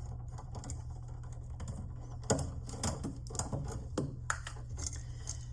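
Light clicks and taps of an electrical outlet and its wires being handled while the ground wire is taken off, over a steady low hum. The clicks bunch together after about two seconds.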